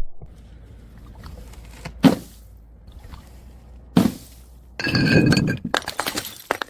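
Glass bottle hitting concrete stairs twice with sharp knocks, then shattering about five seconds in, with ringing glass and shards clinking and scattering for over a second.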